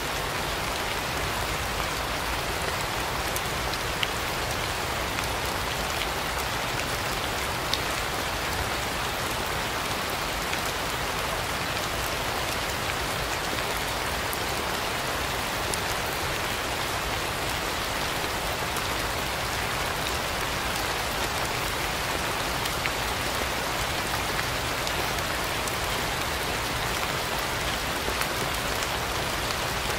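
Steady rain falling, an even hiss with a few louder single drops ticking through it.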